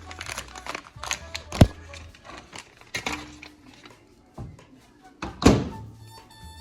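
Clatter of handling with a few knocks, then a microwave oven door shut with a loud thunk about five and a half seconds in.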